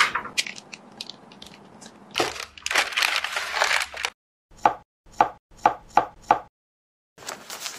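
A chef's knife chopping through a slab of set jelly candy onto a wooden cutting board: about six sharp cuts in quick succession in the second half. Before that comes rustling and crackling of baking paper as the set slab is handled and the paper is peeled off.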